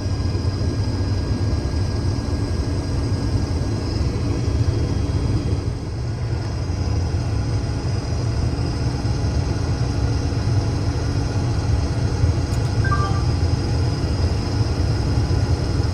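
Case IH 2388 combine running steadily while cutting wheat, heard from inside the cab: a constant low rumble with a faint high whine above it.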